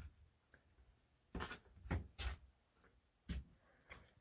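A few quiet, irregular soft thumps and knocks, about five of them spaced unevenly across a few seconds.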